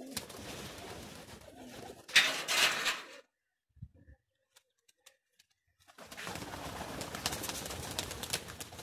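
Domestic pigeons cooing among handling noise, with a loud burst of noise about two seconds in. The sound then drops to near silence for about three seconds before the pigeons and clicking handling noise return.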